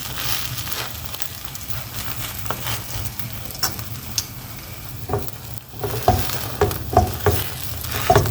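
Food frying in a pan, sizzling steadily, with a cooking utensil scraping and knocking against the pan several times in the second half.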